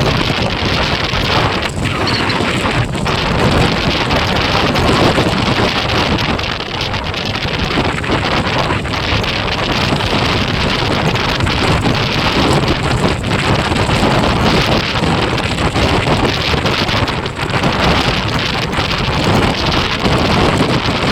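Wind rushing loudly over the microphone of a moving motorcycle, a steady, rough roar that barely varies.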